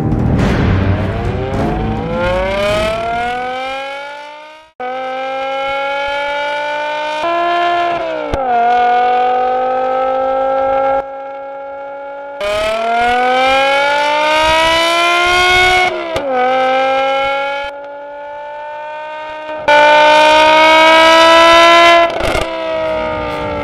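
BMW E60 M5's V10 through a Fi Exhaust valved system with the valves open, accelerating hard: the engine note climbs steadily in pitch, then drops sharply at upshifts about 8 and 16 seconds in. Several separate full-throttle pulls are spliced together, and the sound cuts off abruptly between them.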